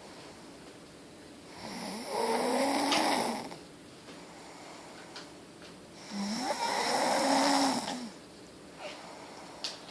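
Snoring: two long snores about four and a half seconds apart, each lasting about two seconds, with the pitch rising and then falling within each snore.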